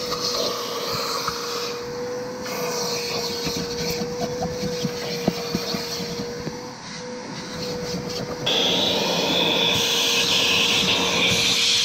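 An electric motor running with a steady whine over a hiss. About eight and a half seconds in, the hiss suddenly gets louder and brighter while the whine holds steady.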